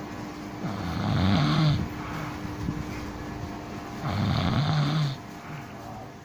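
A person snoring in deep sleep: two long snores, each about a second long and about three seconds apart.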